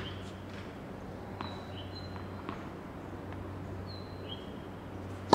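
A tennis ball struck by a racket on a serve near the end: one sharp, loud crack that rings on briefly in the hall. Before it, a low steady electrical hum, with faint scattered ticks and a few short high-pitched chirps.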